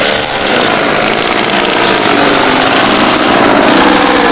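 Loud, steady noise of a small engine running.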